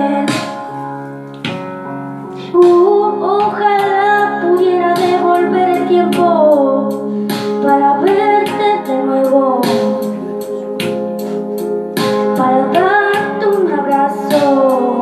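A child singing into a microphone over a music backing track with sustained keyboard chords and a light beat; the sung melody glides up and down in long phrases.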